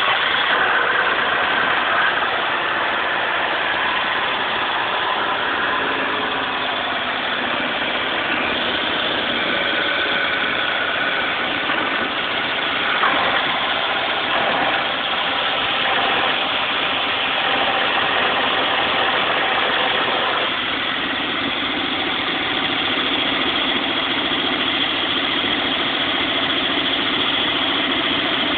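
Daihatsu Move's 660 cc three-cylinder engine idling just after starting, with a rattle from the engine bay. The owner takes the rattle for the well-known Daihatsu DVVT (variable valve timing) failure.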